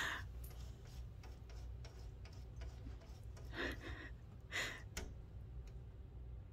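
A few soft taps and scuffs of a cat's paw against window glass, with faint ticks between them.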